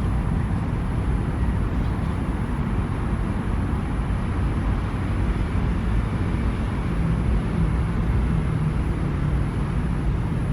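Steady low rumble of road traffic from the surrounding city, with no distinct events.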